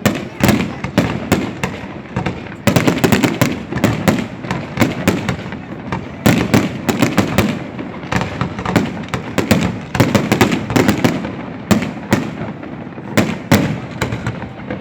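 Fireworks going off in a continuous, irregular barrage of sharp bangs and crackling pops, several a second, with heavier booms mixed in.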